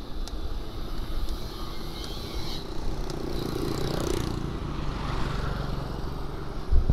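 A small motorcycle overtakes, its engine swelling to loudest about four seconds in and then fading as it pulls ahead. Underneath is a steady low rumble of wind and tyre noise from riding a bicycle.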